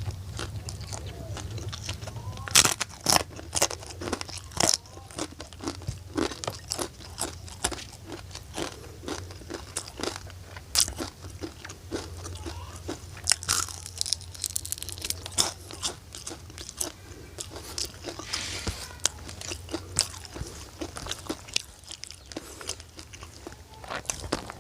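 Person eating crunchy fried food close to the microphone: a long run of crisp crunches and chewing, with louder bites now and then.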